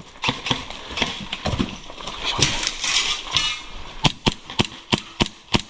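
Airsoft guns firing: scattered clicks and rustle for the first few seconds, then a quick string of sharp single shots, about two to three a second, from about four seconds in.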